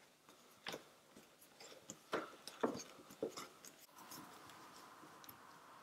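Engineer PZ-59 screw-removal pliers gripping and twisting a screw out of a board: a run of sharp clicks and creaks as the jaws bite and the screw turns, the loudest about two and a half seconds in. A faint steady hum takes over from about four seconds.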